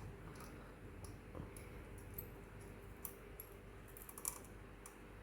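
Faint, scattered light clicks and ticks of a small screwdriver turning out a screw from a graphics card, with metal parts tapping against each other.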